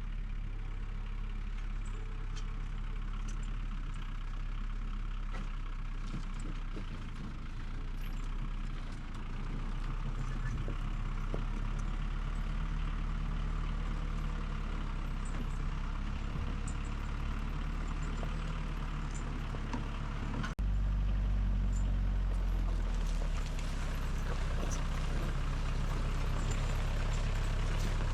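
An engine running steadily. About two-thirds of the way in it turns abruptly louder, with a stronger low rumble.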